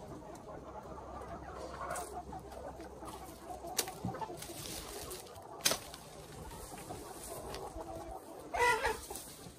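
Minh Du chickens clucking, with one louder, pitched chicken call near the end. Two sharp snaps come about 4 and 6 seconds in as a machete cuts grass stalks.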